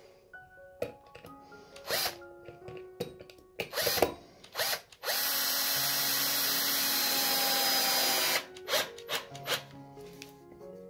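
Power drill driving a long wood screw into a wooden board, running steadily for about three seconds from midway and then stopping.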